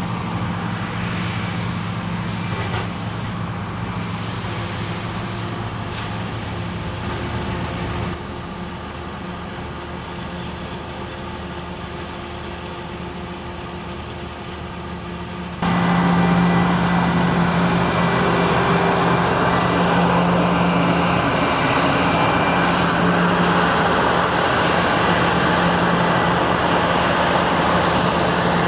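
Diesel engines of harvest machinery running steadily. The sound changes abruptly twice, about eight seconds in and about halfway through, and is louder after the second change.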